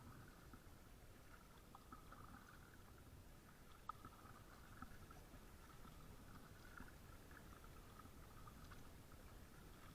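Near silence: faint outdoor ambience with a thin, wavering high tone throughout, and one small click about four seconds in.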